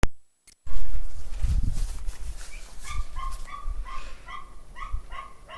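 A dog barking repeatedly in short yaps, about two or three a second, from about halfway in. Before that, after a brief drop-out, there is a loud burst of noise and a few dull knocks.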